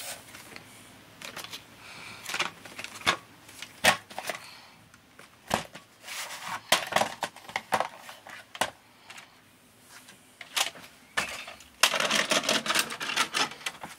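Objects being handled and moved about: scattered sharp knocks and clicks with short rustles, then a longer stretch of clattering and rustling near the end as a cluttered shelf is rummaged through.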